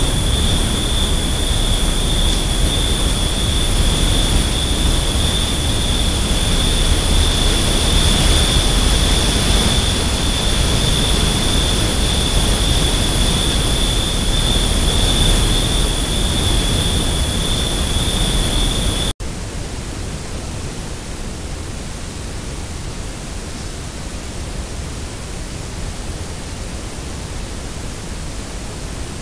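Loud steady hiss from a trail camera's microphone, with a continuous high-pitched tone over it. About two-thirds of the way through it cuts off suddenly to a quieter, plain hiss as a new recording begins.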